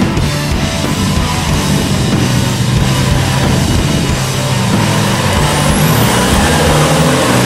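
Heavy rock music playing over the engine of an Isuzu D-Max ute as it pulls up a rutted dirt bank.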